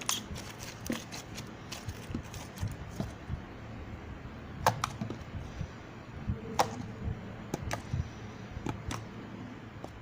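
Irregular light clicks and soft knocks, a few sharper ones about five and six and a half seconds in, like small objects being handled and set down on a table.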